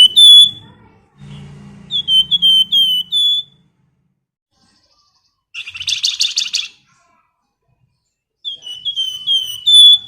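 Flamboyan songbird whistling three phrases of four or five quick, clear notes, each note dipping in pitch, with a short, rapid buzzy trill about six seconds in.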